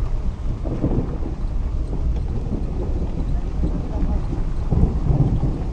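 Heavy rain with a steady low rumble from a vehicle moving along a dirt road, and wind buffeting the microphone.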